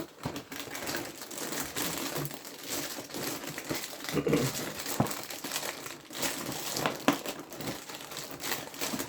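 Crinkling packaging of a new box of Honey Mini-Wheats cereal being opened: steady crackling with a few sharper snaps.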